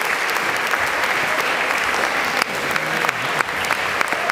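Audience applauding steadily after a performance: a dense patter of many hands clapping.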